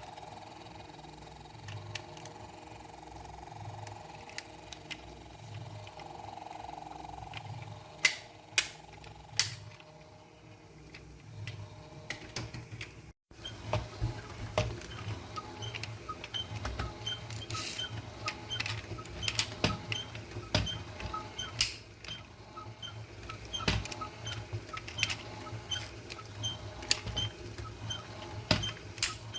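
Small toy cars being handled: three sharp clicks about eight seconds in, then after a brief break, a long run of light, quick ticking mixed with sharper clicks.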